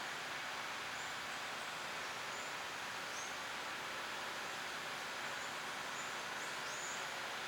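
Steady outdoor background hiss with small birds chirping faintly several times.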